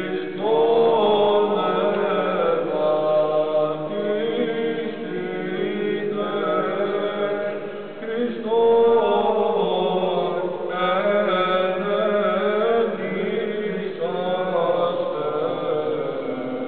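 Liturgical chanting by voices, sung in long held phrases several seconds each, a new phrase starting every four or five seconds.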